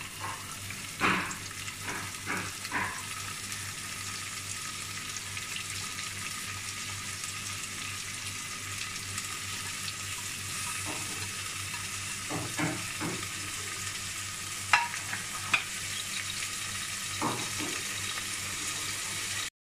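Chopped vegetables sizzling in hot oil in a pressure cooker: a steady frying hiss, with a few knocks and clatters as carrots, peas and capsicum are tipped in from a plate, two sharp clicks loudest about three quarters of the way in.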